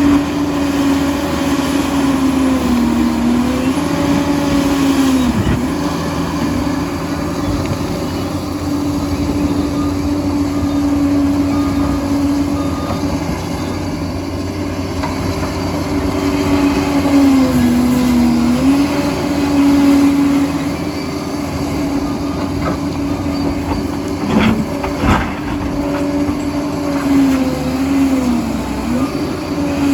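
Liebherr 746 crawler dozer running under load, a steady engine and drive drone whose pitch sags briefly several times as the load comes on. A few sharp metallic knocks sound near the end.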